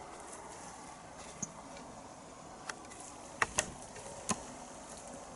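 A handful of light, sharp clicks and taps, scattered a second or so apart against a quiet background.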